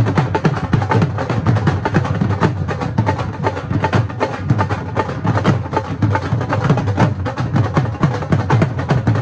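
A group of dhols beaten together with sticks in the keherwa taal, an eight-beat rhythm: deep bass strokes under fast, sharp stick hits, loud and steady throughout.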